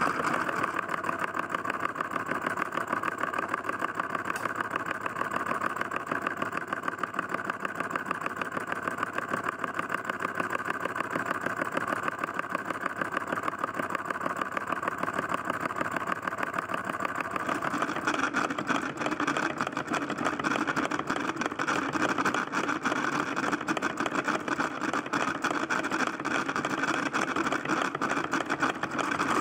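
Small solenoid engine, converted from a Stirling engine, running steadily, its solenoid clicking in a fast even rhythm as it drives a model line shaft through belts and pulleys. The sound turns brighter a little over halfway through.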